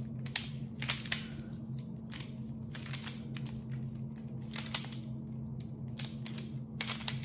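QiYi pyraminx being turned rapidly during a solve: irregular plastic clicks and clacks as its layers and tips snap round, some close together and some spaced out.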